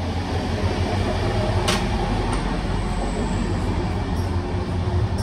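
Passenger express train running at speed, heard from inside the carriage as a steady low rumble of wheels on the rails, with a single sharp click about a second and a half in.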